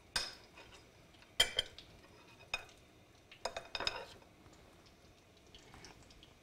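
Forks clinking against the bowls of flour and beaten egg as thin chicken cutlets are turned and dredged: a handful of sharp clinks in the first four seconds, then quieter.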